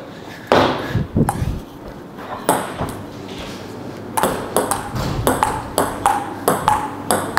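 Table tennis ball clicking off the paddles and the table: a few separate bounces in the first second and a half, then a fast back-and-forth rally from about four seconds in, around four clicks a second.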